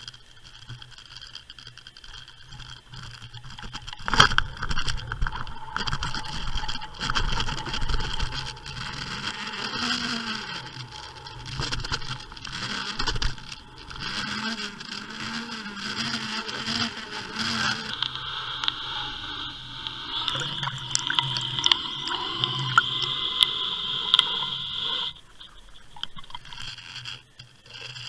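Water noise and scraping picked up by an underwater camera on a fishing rig as it is dragged over the seabed and drawn up through the water, with scattered knocks, a sharp one about four seconds in.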